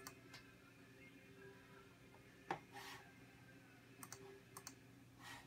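Near silence with a few faint, scattered clicks at a computer desk, the loudest about two and a half seconds in, over a low steady hum.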